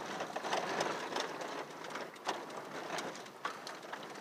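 Cabin noise of a vehicle driving on a rough, rocky dirt road: a steady road noise with scattered rattles and clicks as the vehicle bounces over the ruts.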